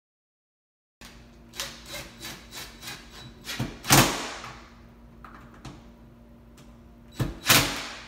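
Cordless drill/driver driving screws into a wooden door jamb in short bursts: one about four seconds in and two close together near the end. A run of light clicks and taps of handling the screws and hardware comes before the first burst.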